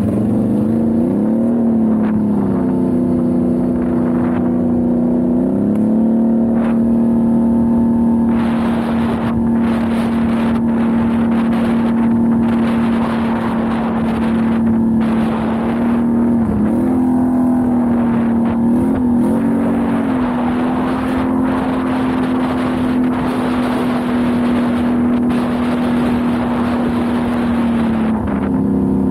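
Can-Am XMR 1000 ATV's V-twin engine running at a steady cruising pitch, with a few brief dips and rises in revs and a drop near the end. Wind and tyre noise on gravel come in from about eight seconds in.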